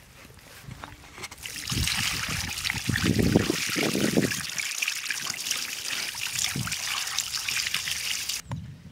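Water poured from a pot splashing over a whole plucked chicken on a wooden stump while hands rub it clean. The pour starts about a second and a half in and stops abruptly near the end.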